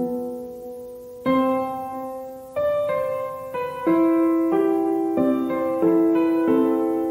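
Calm background piano music: single notes and soft chords struck about once a second, each ringing and slowly fading.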